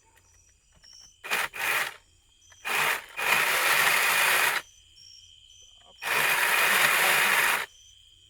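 Battery-powered Milwaukee pole saw cutting wood in bursts: two quick short cuts, then two longer cuts of about a second and a half each. Its chain is nicked from high-tensile wire, which gives it a chattery sound. Crickets chirp steadily between the cuts.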